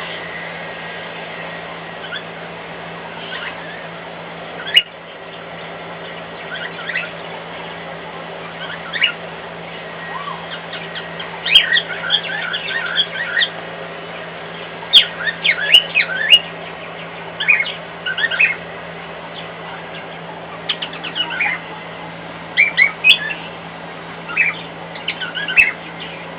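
Cockatiel calling in short chirps and whistles that swoop up and down in pitch, sparse at first and coming in quick clusters from about halfway through. Under it runs the steady hum of a hairdryer in another room, and there is one sharp click early on.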